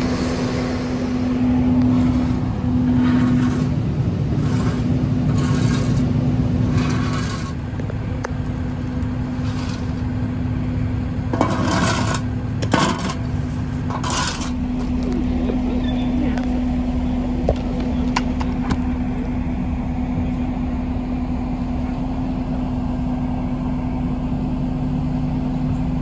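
A heavy truck engine running steadily at idle with a constant droning hum, with a few scrapes and indistinct voices coming and going partway through.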